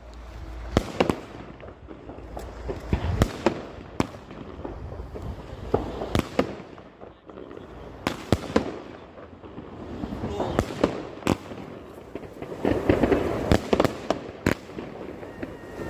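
Albert 'Al Dorado' consumer firework going off: a string of sharp bangs at irregular intervals, some in quick runs, over stretches of crackling.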